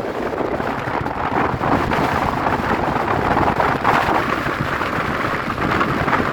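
Strong wind buffeting the microphone: a loud, continuous rushing noise that swells and eases with the gusts.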